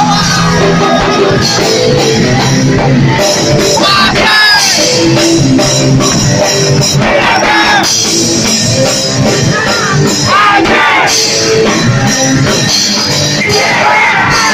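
Rock band playing loud live music, with drums and singing.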